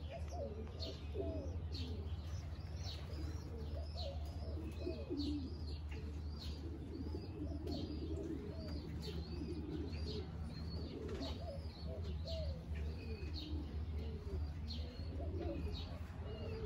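Many pigeons cooing together in a loft, overlapping low coos with no break. Short high chirps repeat above them, over a steady low hum.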